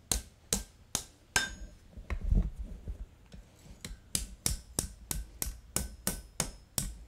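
Ball-peen hammer striking a red-hot steel bar on an anvil, bending it over: four blows in the first second and a half, a pause with softer knocks, then a steady run of blows about three a second, some leaving a faint metallic ring.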